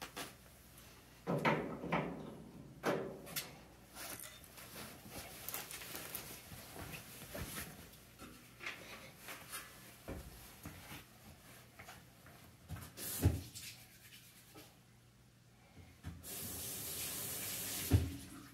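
Knocks, clatter and rubbing from hands-on work on an opened clothes dryer's sheet-metal cabinet. There is a cluster of sharp knocks in the first three seconds, one loud knock a little past the middle, then a steady hiss for about two seconds near the end that closes with a thump.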